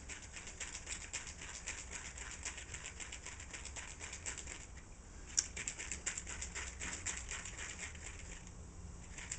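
Faint crackling sizzle of food frying in a pan: a quick, irregular run of tiny ticks, with one sharper click about five seconds in.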